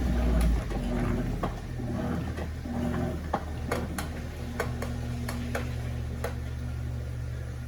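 Electrolux top-load washing machine running: a low motor hum that comes in short pulses over the first few seconds, then runs steadily from about halfway, with scattered sharp clicks and ticks.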